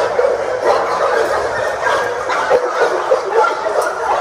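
Many kennel dogs barking and yipping at once, an unbroken chorus of overlapping barks.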